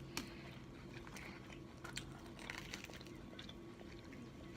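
Faint close-up chewing of a sub sandwich, with scattered soft wet clicks and smacks from the mouth.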